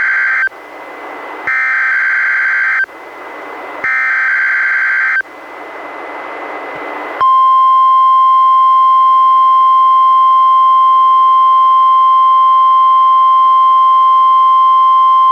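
NOAA Weather Radio Required Weekly Test signal from a Reecom R-1630 weather radio. The end of one SAME header data burst is followed by two more, each about a second and a half long, with radio hiss between them. About seven seconds in, the steady 1050 Hz warning alarm tone starts and holds, louder than the bursts.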